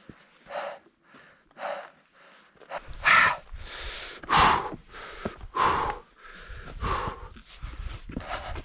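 Hiker breathing hard, huffing and puffing, with a heavy breath about once a second from exertion on a steep climb at high altitude. The breaths grow louder about three seconds in, where a low rumble joins them.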